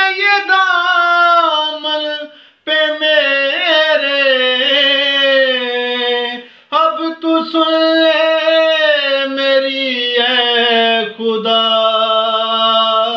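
A man sings an Urdu devotional song unaccompanied, drawing out long, wavering notes. There are three phrases, with short breaks for breath about two and a half seconds in and again near the middle.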